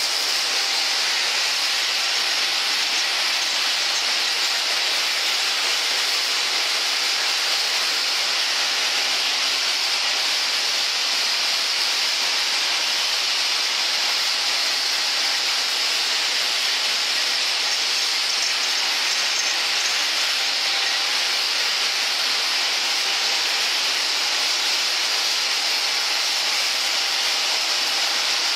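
Fuse-making machine running: a steady, even whirring hiss with no rhythm or pauses.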